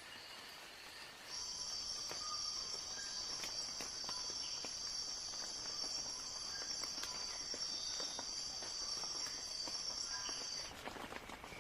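A steady, high-pitched insect trill starts about a second in and stops near the end, over light rain with scattered drops pattering.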